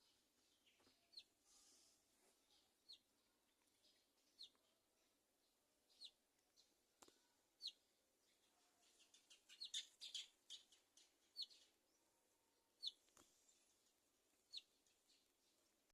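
Faint, high chirps from a small bird: a short falling note repeated about every one and a half seconds, with a quick flurry of chirps about ten seconds in.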